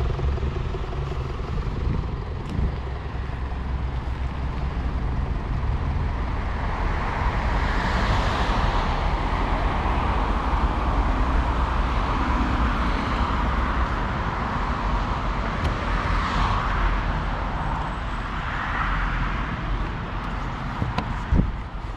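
Mercedes C 220 d's 2.0-litre four-cylinder diesel pulling the car along at speed, a steady low rumble under tyre and wind noise that swells and eases twice. There is a short knock near the end.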